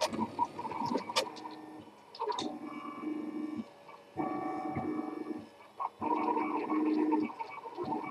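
RepRap 3D printer's stepper motors whining as the print head moves, in pitched runs of about a second that change note from move to move, with short gaps between them and a few sharp clicks.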